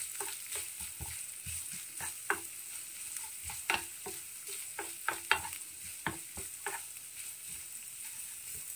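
Minced meat and chopped onion sizzling in oil in a frying pan while a wooden spoon stirs them, with a faint steady hiss and irregular light scrapes and taps of the spoon against the pan.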